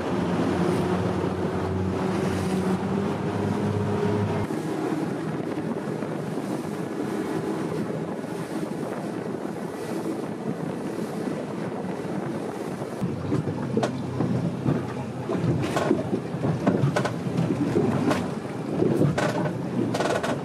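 Wind buffeting the microphone over choppy water, with water rushing and splashing around a boat under way. A steady hum runs for the first four seconds or so and then stops. Harder gusts hit the microphone in the last few seconds.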